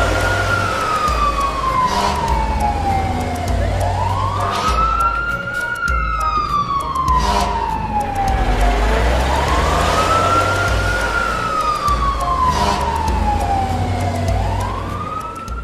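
Fire truck siren sound effect wailing: a tone that rises quickly and falls slowly, about three times, over a low rumble.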